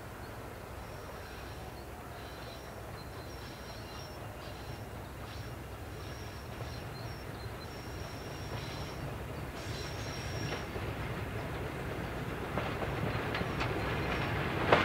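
Class 50 diesel locomotive hauling a passenger train towards the listener, its English Electric sixteen-cylinder engine rumbling and growing steadily louder. In the last couple of seconds the wheels click over the rail joints.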